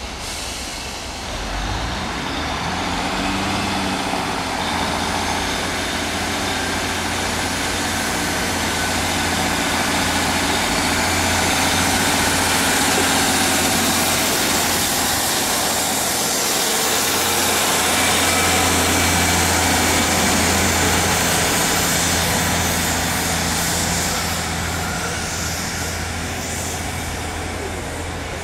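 Single-car Class 153 diesel multiple unit's underfloor Cummins diesel engine running as the train approaches and passes with its wheels running on the rails. The sound swells in the middle as it goes by and eases off near the end.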